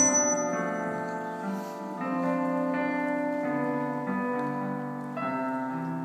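Grand piano playing slow, held chords that change every second or so, the closing bars of a song accompaniment, fading slightly toward the end.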